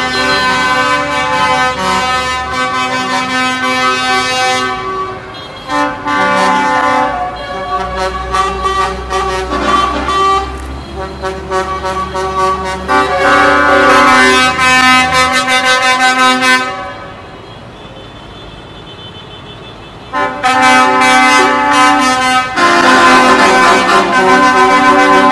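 Many vehicle horns from a convoy of tractors and trucks sounding in long, overlapping blasts over a low engine rumble. The horns drop away for about three seconds near the end, then come back loud.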